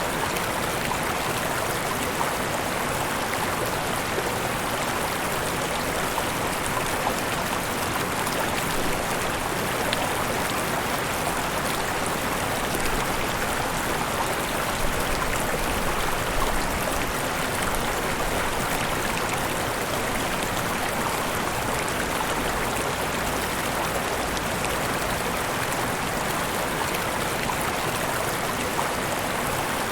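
Mountain river tumbling over small waterfalls: a steady, even rush of flowing water.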